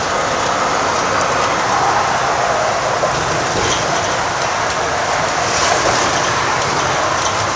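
Steady ride noise inside a moving London double-decker bus: engine and road noise with a few faint ticks and rattles.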